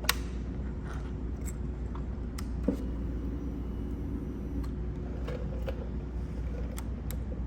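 Steady low hum with a few sharp clicks and taps, the loudest right at the start and another about two and a half seconds in.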